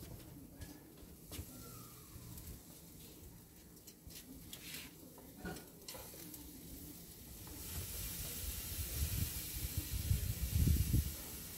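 Marinated steaks sizzling on a barbecue grill, with a few light clicks early on. The sizzle turns much louder and brighter about eight seconds in, with a low rumble near the end.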